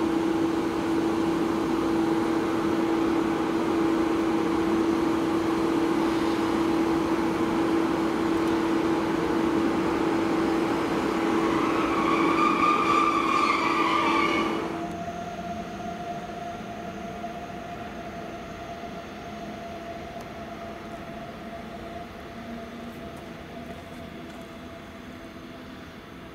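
Double-deck regional train pulling out of a station. A strong steady electrical hum is joined about eleven seconds in by a faintly rising whine. Then the sound drops off sharply and fades away as the train leaves.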